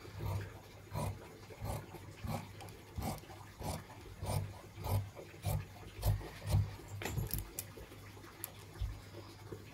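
Large tailoring scissors cutting through folded fabric, a steady rhythm of snips about three every two seconds as the blades close along the cutting line.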